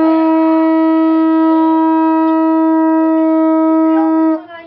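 Conch shell horn blown in one long, loud, steady note at a single pitch, which cuts off with a slight drop in pitch near the end.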